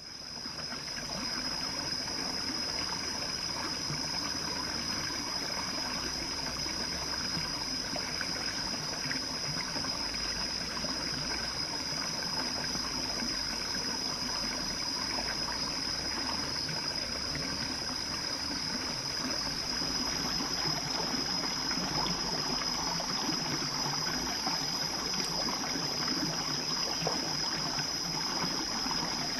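A forest stream trickling over rocks, with a steady high-pitched whine on top of it, fading in at the start.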